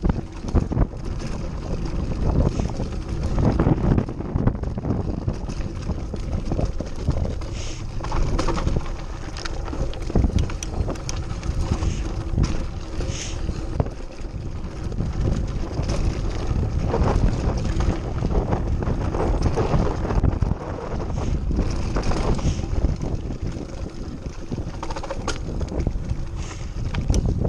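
Mountain bike riding over a dry dirt trail: wind buffeting the camera microphone, with tyres on loose dirt and frequent knocks and rattles from the bike over bumps.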